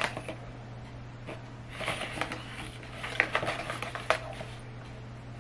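A cardboard perfume box and its paper insert being handled and rustled, with light crackling and sharp little clicks in two bursts, about two seconds in and again from about three to four seconds in. A steady low hum sits underneath.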